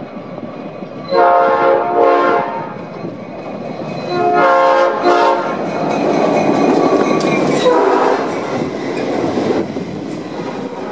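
Diesel freight locomotive sounding its horn in two pairs of blasts as it approaches, then its engine and wheels pass close by, followed by freight cars rolling past with a clattering of wheels on rail joints.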